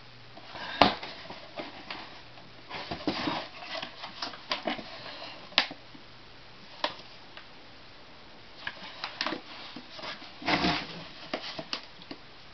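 Gloved hands handling a 1996–97 Honda Accord tail light assembly, heat-softened after baking so the lens can be pried from the housing: scattered irregular plastic clicks and knocks with short scuffing rustles, the loudest clicks about a second in and near the middle.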